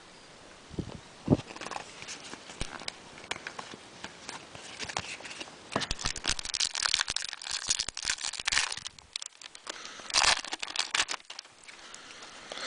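Trading card pack wrapper being torn open and crinkled, with cards being handled. A few light clicks come first, then about five seconds in there is irregular rustling and crackling, busiest in the middle and again about ten seconds in.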